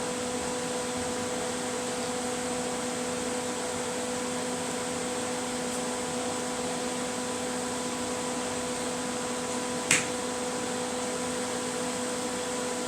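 Steady mechanical fan hum over an even hiss, with one sharp click about ten seconds in.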